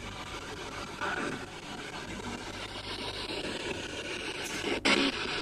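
Spirit box sweeping through radio stations: a steady hiss of static with a brief snatch of broken sound about a second in, and a sharp click just before the end.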